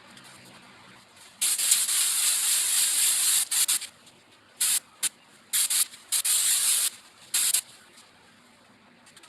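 Paint spray gun spraying pigmented lacquer in bursts: one long hiss of about two seconds, then several short ones, cutting on and off with the trigger.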